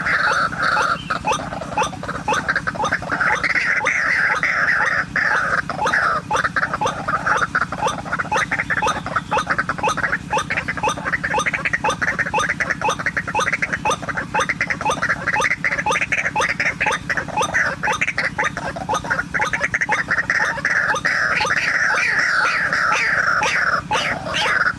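White-breasted waterhens calling: a continuous run of rapidly repeated croaking notes that grows louder and eases off in stretches of a few seconds.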